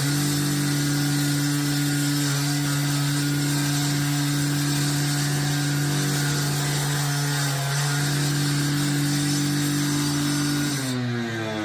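Engine-driven concrete cut-off saw held at full throttle, running at a steady high pitch, then the throttle is released near the end and the engine winds down.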